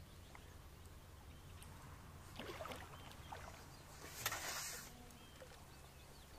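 Faint splashing of a hooked small carp thrashing in shallow water by the reeds as it is played in, with a brief louder splash about four seconds in.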